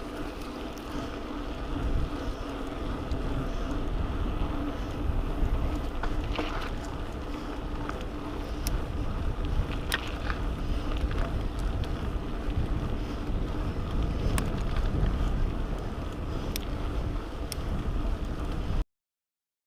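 Mountain bike riding a dirt trail: wind buffeting the microphone over a low rumble from the tyres, with scattered sharp clicks and rattles. The sound cuts off suddenly near the end.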